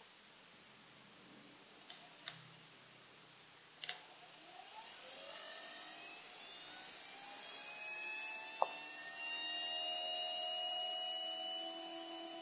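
Blender's universal motor, rewound to run on 12 volts, starting up: three sharp clicks, then from about four seconds in a rising whine as it gathers speed. It settles into a steady high whine with hiss.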